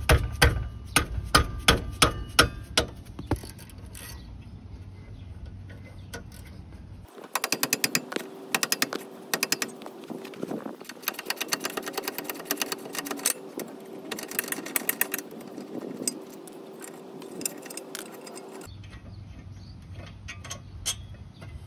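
Ratchet and socket loosening a 17 mm rear brake caliper bracket bolt. Sharp metal clicks come about two a second at first, then from about seven seconds there is a long run of fast clicking as the ratchet works the bolt.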